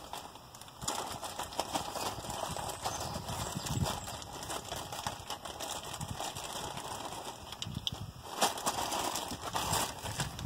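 Irregular small clicks and knocks with rustling as pump fittings and parts are handled, a little busier near the end.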